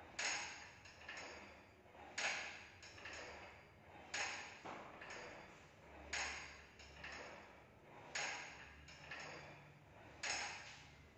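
Sharp metallic clanks with a brief ring, about one every two seconds (six in all), each followed by one or two lighter clicks, as a gym cable machine is worked rep by rep.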